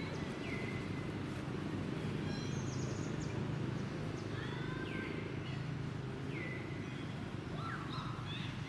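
Birds chirping in short, falling calls, repeated every second or so, over a steady low hum.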